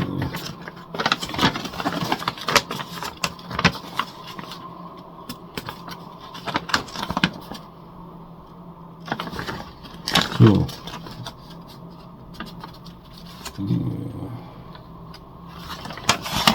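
Irregular clicks, rustles and scrapes of small objects and paper being handled, thickest over the first eight seconds. Two brief murmured sounds of a man's voice come about ten and fourteen seconds in.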